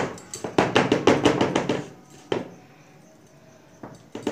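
Round metal cake pan full of batter rapped against a wooden tabletop, a quick run of knocks for about two seconds, one more knock, a pause, then a few more knocks near the end. Tapping the filled pan like this levels the batter and knocks out air bubbles before baking.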